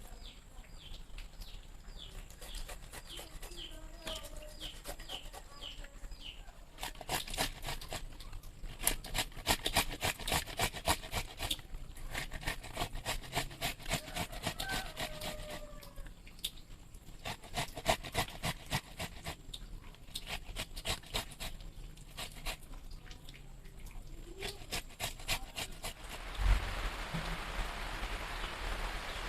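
Chickens clucking softly, over a long run of rapid, irregular clicking and tapping. A steady hiss begins near the end.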